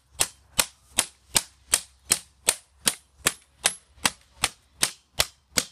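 A metal tool repeatedly striking the broken parts of an iPad mini: a steady run of sharp, loud clacks, close to three a second.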